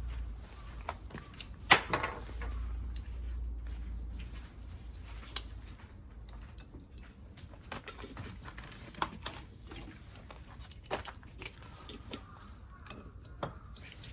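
Scattered clicks and knocks of hand tools and metal parts being handled during scooter engine disassembly, with one sharper knock about two seconds in.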